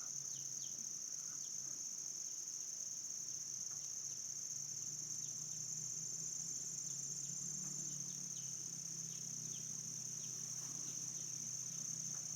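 Insects trilling steadily at a high pitch, with faint short chirps scattered over it and a faint low hum underneath.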